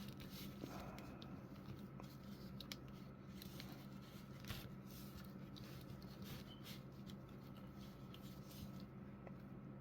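Faint scattered clicks and light rubbing of a plastic action figure being handled and set standing on a table, over a steady low hum.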